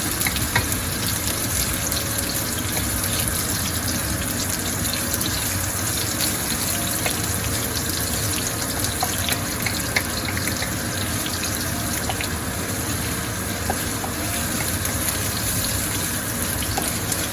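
Onions and ginger sizzling in hot oil in a cooking pot: a steady sizzle dotted with small crackles and pops.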